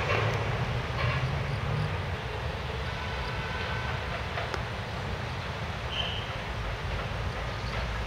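Steady outdoor city background: a low rumble with hiss, as of distant traffic, and a brief high chirp about six seconds in.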